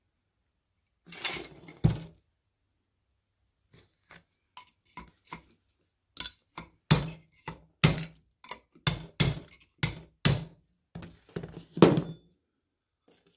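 Irregular sharp metal knocks and clinks of hand tools against a Webster oscillating low-tension magneto's housing while it is dismantled. There are a couple of knocks about a second in, then a quicker run of louder strikes, one or two a second, from about six seconds in until near the end.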